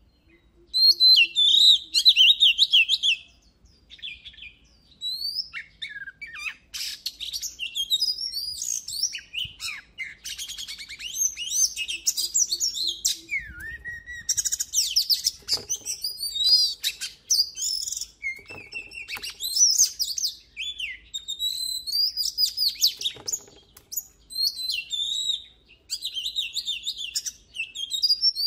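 Oriental magpie-robin singing: a long run of fast, varied whistled and chattering phrases with short pauses between them, loudest in a burst a second or so in.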